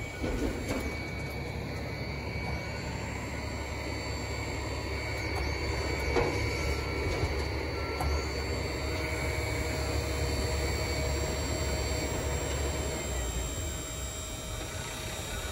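Dump trailer's electric-hydraulic pump running steadily with a whine as it raises the bed on its hydraulic rams, over a low rumble. There are a couple of knocks about six and eight seconds in.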